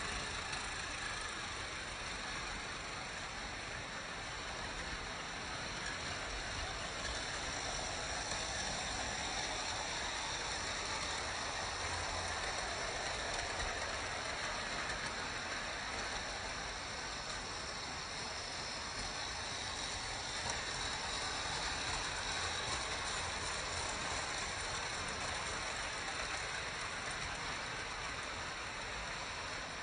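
Vintage Märklin model trains running on metal M-track: a steady rushing rumble of wheels rolling over the rails.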